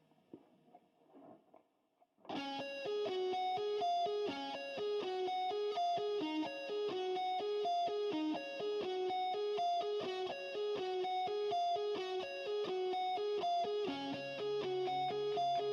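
Background music: a plucked guitar riff with a steady beat, starting after about two seconds of faint small sounds, with a lower part joining near the end.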